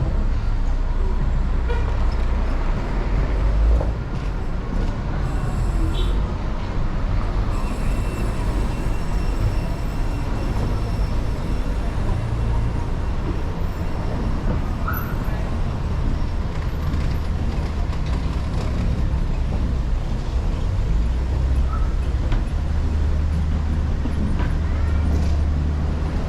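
Street traffic: vehicle engines running and passing close by, a low steady drone that grows stronger again near the end.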